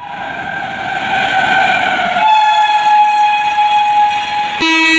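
Indian Railways locomotive horn sounding one long, steady blast over the rumble of a passing train, its pitch sagging slightly at first. Near the end it changes abruptly to a shorter, lower-pitched horn blast.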